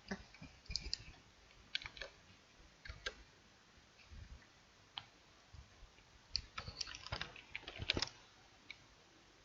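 Irregular clicking of a computer mouse and keyboard, in scattered single clicks and short runs, busiest about six and a half to eight seconds in.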